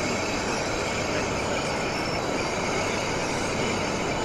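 Model diesel locomotive and hopper wagons running steadily along a model railway layout, over a continuous hum of background noise.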